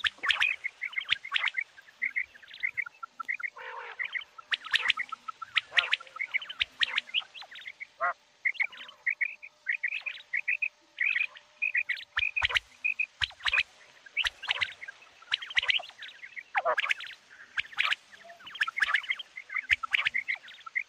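Common quails calling: dense runs of short, quickly repeated chirping notes from several birds overlapping, with sharp clicks and a few lower, harsher calls now and then.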